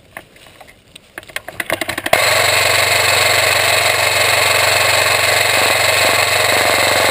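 Airsoft M249 SAW's electric gearbox firing one long full-auto burst of about five seconds, a loud dense rapid buzz that starts abruptly about two seconds in and cuts off sharply. Before it, a few quieter clicks and knocks of the gun being handled.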